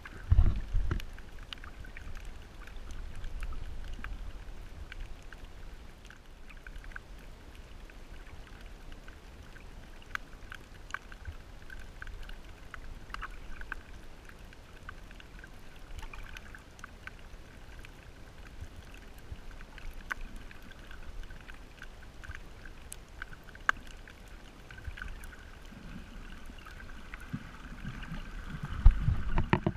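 Underwater ambience picked up by a submerged camera: a low hiss scattered with faint clicks and crackles. Muffled low thuds of water movement come about half a second in and again near the end.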